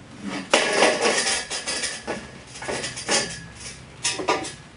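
Long metal tube clanking against a miter saw and metal workbench as it is moved and lifted, with a loud first knock about half a second in that rings on, then a few more knocks.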